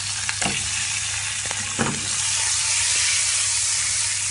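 Hot oil sizzling steadily around whole boiled eggs frying in a pan, with two short knocks about half a second and nearly two seconds in; the sizzle grows louder after about two seconds.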